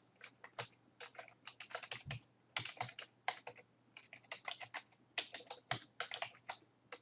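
Typing on a computer keyboard: quick runs of key clicks broken by short pauses, over a faint steady low hum.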